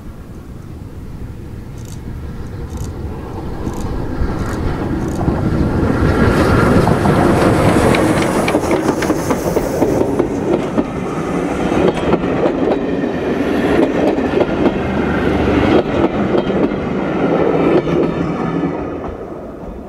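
SR Battle of Britain class steam locomotive 34053 Sir Keith Park running past at the head of a train of coaches. The sound swells as it approaches, then the coaches' wheels clatter over the rail joints as they go by, and it falls away near the end.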